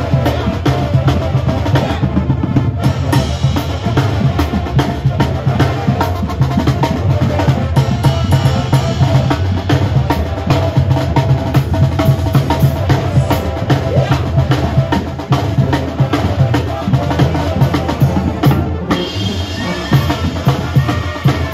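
A live Mexican banda playing: a sousaphone bass line under brass, with the bass drum and its mounted cymbal, snare and congas keeping a steady, driving beat.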